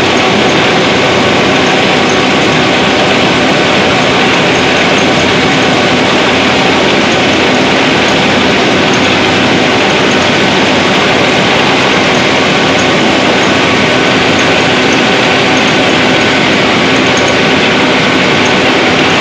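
Small rice mill machinery running: a loud, steady mechanical din of motors, belts and milling parts, with a faint steady hum underneath.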